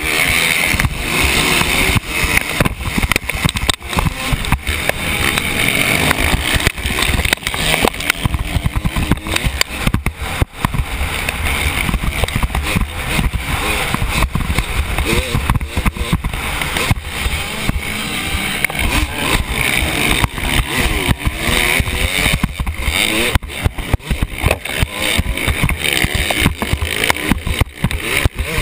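Motocross dirt bikes running under a constant rattle and buffeting from a loosely attached helmet camera, which the uploader blames for the terrible sound; engine pitch wavers faintly beneath the clatter.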